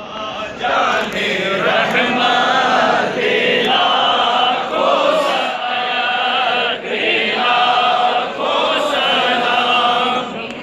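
A crowd of men chanting together in unison, in phrases of one and a half to two seconds with short breaks between them.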